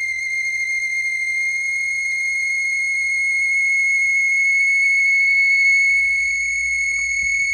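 Laser projector giving a loud, steady high-pitched squeal with overtones that waver slightly. The sign of very bad bearings.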